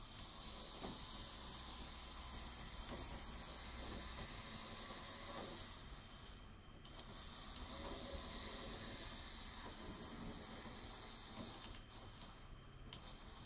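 Motorised LEGO train's motor running as the train rolls along plastic track, giving a steady high whirr. It drops away briefly about six seconds in, picks up again, and stops near the end.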